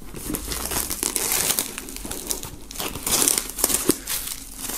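Clear plastic shrink-wrap film being pulled and peeled off a cardboard box, crinkling and crackling.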